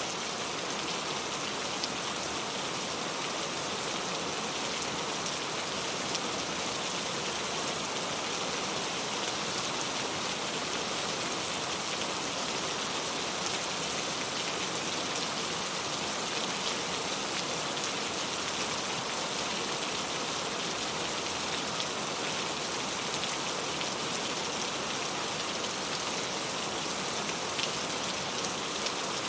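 Steady rain falling, an even hiss with faint patter of drops.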